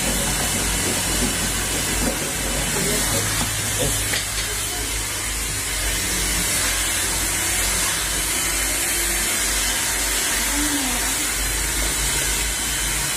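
A steady hiss with a low hum underneath, and faint voices in the background.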